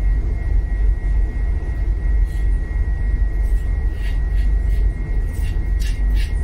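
Steady low rumble with a thin, steady high whine over it; from about four seconds in, a few light clicks of a spoon against a plate.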